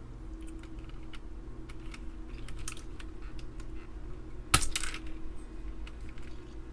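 Keycaps being pulled off a computer keyboard with a key puller: scattered small plastic clicks and rattles, with one sharp, much louder click about four and a half seconds in.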